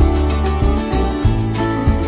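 Background music: guitar over bass notes, with a steady beat.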